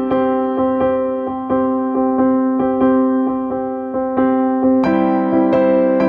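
Background music played on an electric piano: a slow, gentle line of sustained notes struck about every two-thirds of a second, swelling into a fuller chord near the end.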